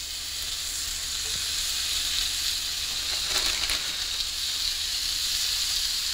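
Ground-chicken burger patties sizzling in an oiled cast-iron skillet, the frying growing louder as more patties are laid into the pan.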